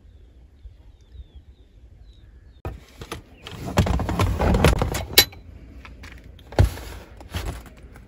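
Folding metal camping table with a mesh top being handled in a car's cargo area: rattling and scraping with sharp knocks, the loudest knocks about five seconds in and again a moment later.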